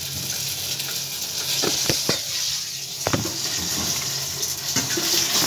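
Steady sizzling hiss of a pan frying on a gas stove, with several sharp knocks scattered through it.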